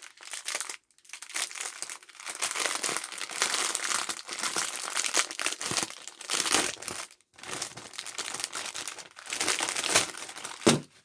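Plastic packaging being crinkled and torn open by hand, in uneven stretches of rustling with short pauses.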